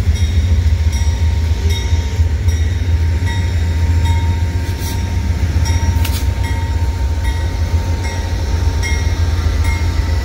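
Amtrak GE P42DC Genesis diesel locomotives rolling slowly past as the train pulls out, a steady low engine rumble with a light regular clicking over it.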